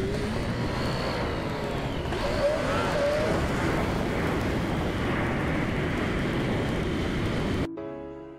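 Steady rushing noise of a vehicle in motion, with a few short rising tones. Music cuts in abruptly near the end.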